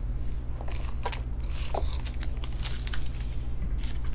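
Scratchy rustling and clicking of a trading card being handled and slid into a clear plastic penny sleeve, over a steady low hum.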